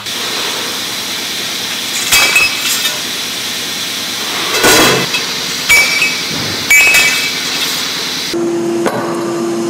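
Metal tubes knocking and clinking against each other as they are handled, several sharp ringing knocks over steady workshop noise. Near the end the noise thins and a steady low hum comes in.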